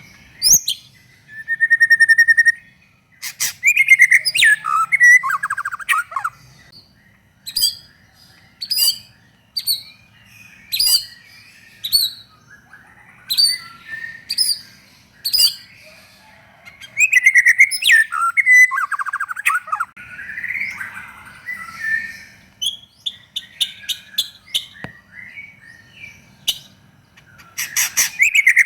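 White-rumped shama (murai batu) singing loudly in separate phrases. It gives a held clear whistle, quick warbled runs and trills, then a string of sharp high notes about one a second, then more varied phrases.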